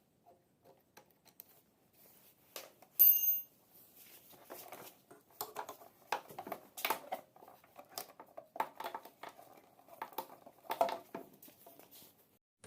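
Hand tools and motorcycle parts clicking and knocking as the ignition lock is being unbolted. The loudest is a single sharp metallic clink about three seconds in that rings briefly.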